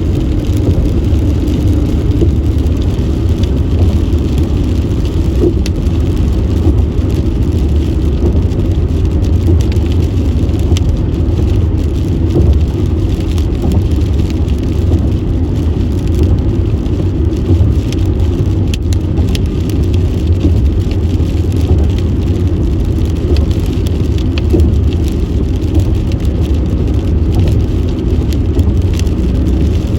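A car driving on a wet road in the rain: a steady low rumble of tyres and engine, with faint scattered ticks of rain.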